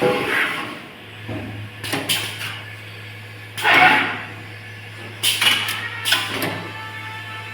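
Automatic wire harness processing machine working: a steady low hum with intermittent mechanical clunks and short noisy bursts every second or two as its stations cycle.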